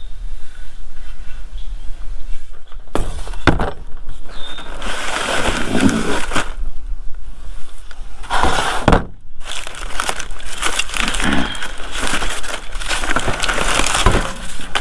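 Packing material rustling and crinkling as a shipping box is unpacked, in long noisy stretches, with a few sharp knocks.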